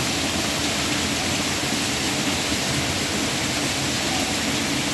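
Steady rainfall with water running off the edge of a house roof: a constant, even hiss.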